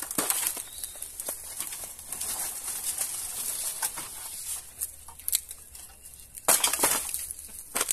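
Leaves and stems of a passion fruit vine rustling and crackling as its support is pulled away and it is brought down over a small wooden shelter roof, with a louder burst of rustling near the end.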